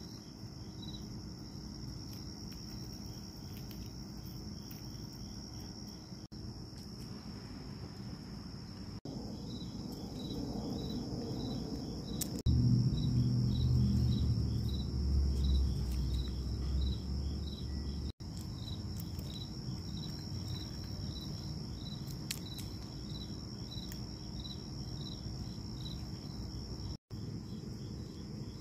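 Insects chirping steadily outdoors: a continuous high trill with short chirps repeating a little under twice a second. For several seconds about halfway through, a louder low rumble lies under it.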